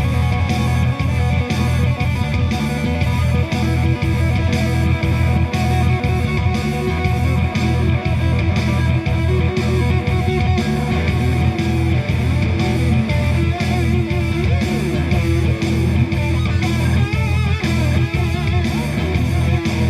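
Live band playing amplified rock music: electric guitar and bass guitar over a steady drum beat.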